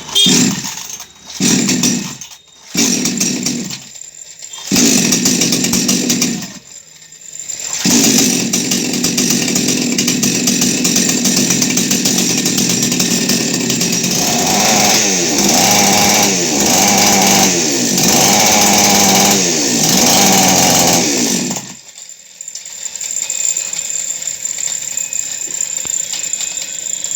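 Two-stroke chainsaw engine, newly fitted with a cylinder liner and piston, firing in a few short bursts and then running steadily. Over the following seconds it is revved and let fall back several times, then drops suddenly to a quieter, steady run near the end.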